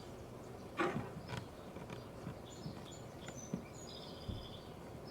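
Faint taps and clicks from Play-Doh tools being handled, with a few short high chirps about halfway through.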